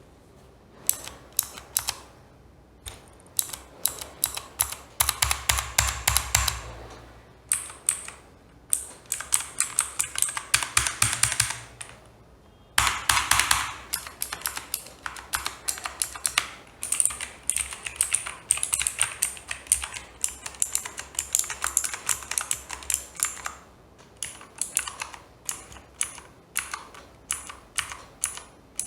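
Typing on an XPG Infarex K20 mechanical keyboard with clicky Kailh Blue switches. Runs of rapid key clicks alternate with single keystrokes and short pauses.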